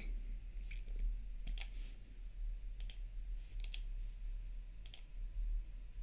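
Computer mouse clicking, several separate clicks with a couple in quick pairs, over a steady low hum.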